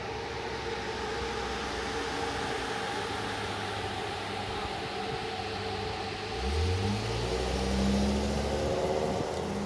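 Trolley-style shuttle bus engine running, then revving up and pulling away about six seconds in, its pitch rising and holding.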